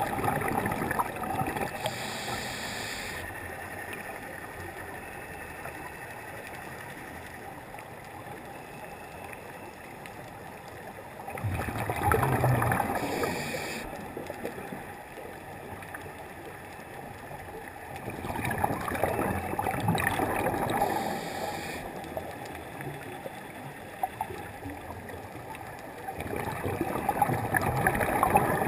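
Scuba diver breathing through a regulator, heard underwater through a camera housing: exhaled bubbles rush out in long gurgling surges several seconds apart, with a steady hiss between them.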